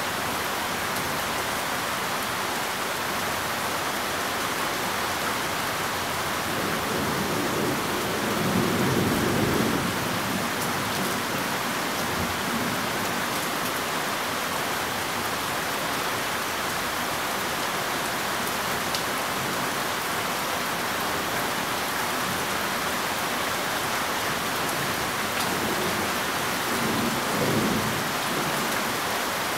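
Steady rain with distant thunder: a low rumble of thunder about eight to ten seconds in, and a shorter, fainter rumble near the end.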